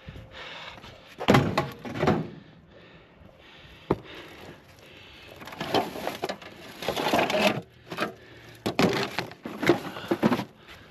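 Scrap items being handled and shifted in a junk pile: irregular clattering, knocks and rustling of plastic and metal pieces, with a single sharp knock about four seconds in.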